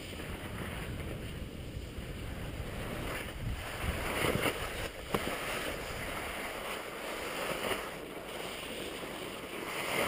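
Skis sliding and scraping over snow, with wind buffeting the microphone. The scraping grows louder about four to five seconds in, where there is one sharp click.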